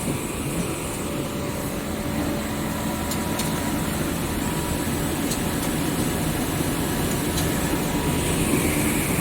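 Steady running noise of rubber hose production-line machinery at the third-layer rubber extruder: a continuous low hum with a couple of faint whining tones and a few light ticks.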